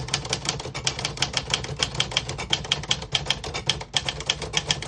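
1964 Underwood 319 manual portable typewriter being typed on: a quick, even run of key and typebar strikes, several a second, with the type striking the lower, red half of the ribbon.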